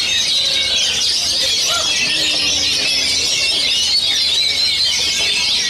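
Many caged oriental magpie-robins singing at once in a contest: a dense, unbroken tangle of rapid high chirps, trills and whistled phrases.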